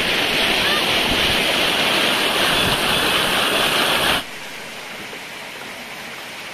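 Muddy floodwater rushing fast close to the microphone, a loud steady rush of water. About four seconds in it cuts off abruptly to a much quieter steady hiss.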